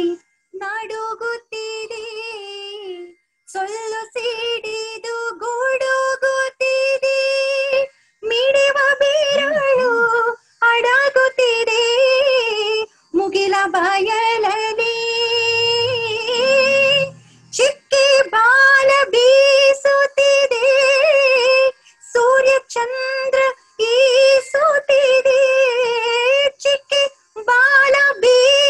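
A woman singing solo without accompaniment, in long held notes with wavering ornaments and short breaks between phrases.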